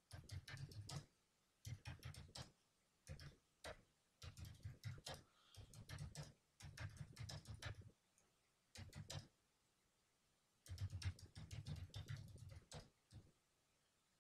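Computer keyboard being typed on in short runs of rapid keystrokes, separated by brief pauses and one longer pause about two-thirds of the way through. The typing is faint.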